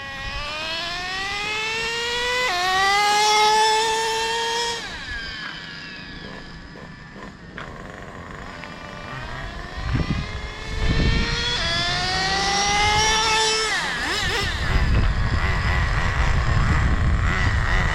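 Traxxas Slayer Pro 3.3's TRX 3.3 nitro engine revving up in a rising whine, dropping sharply in pitch as the two-speed transmission shifts into second gear, then climbing again before backing off; this happens twice. A loud rough rumbling noise fills the last few seconds.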